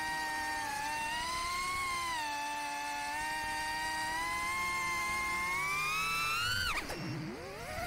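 FPV quadcopter's four BetaFPV 2004 3000kV brushless motors on 4S, spinning HQProp 4x2x3 three-blade props: a steady high whine that wavers in pitch with the throttle. About seven seconds in the pitch dives sharply as the motors slow, then climbs back up near the end.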